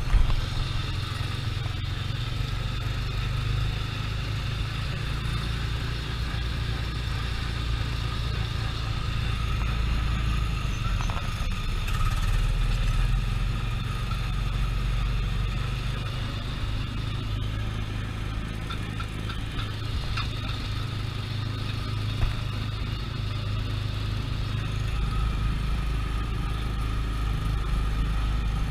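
Small gasoline engine of a Tomorrowland Speedway ride car running steadily under way, a low drone that swells and eases a little along the track.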